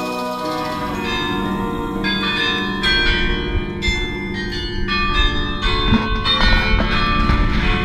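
Bruges Belfry carillon bells ringing a tune: struck bell notes follow one another and ring on over each other.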